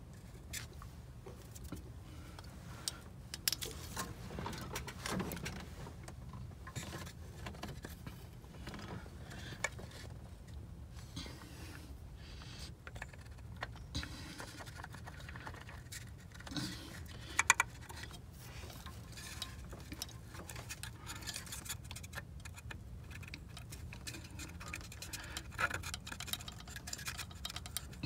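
Scattered small metallic clicks and clinks of hand tools and engine parts being handled during engine repair work, over a steady low hum. Two sharper clicks come about two-thirds of the way through.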